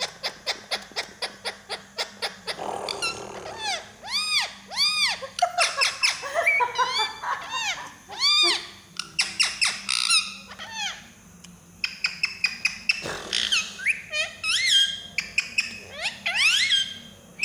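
Pet green ring-necked parakeet vocalising: a fast run of clicks at first, then a long string of short chirps, whistles and squawky calls that rise and fall in pitch.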